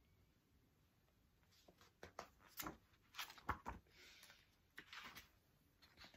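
Paperback picture book being handled and its pages turned: faint rustles and soft snaps of paper starting about a second and a half in.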